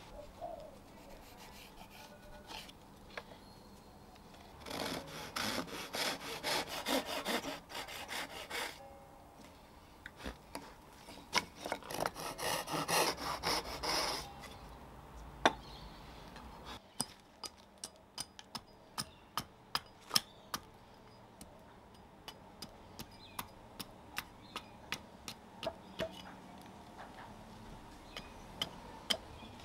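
Handsaw cutting across a nectarine-wood fork blank in two bouts of rhythmic strokes, then a small axe hewing the blank on a chopping block in a long run of sharp, light chops.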